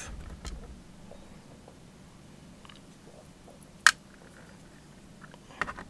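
Tweezers handling small lock pins from a lock cylinder's plug against a plastic pin tray: faint scattered clicks, with one sharp click about four seconds in and a few more near the end.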